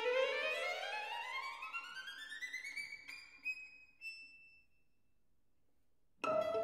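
Solo violin: a held note slides upward in one long glissando and fades away, leaving a moment of near silence. The music starts again abruptly near the end with new notes.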